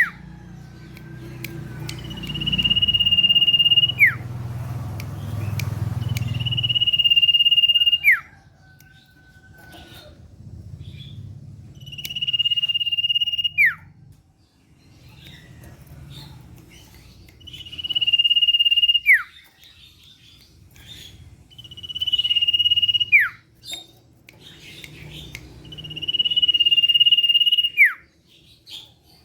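Common iora (sirtu/cipoh) singing: six long, steady high whistles, each ending in a sharp downward slide, repeated about every four to five seconds.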